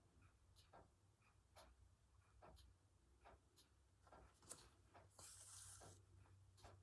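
Near silence with faint hand-stitching sounds: soft, irregular ticks of a needle passing through fabric, and about five seconds in a brief hiss of thread being drawn through the cloth.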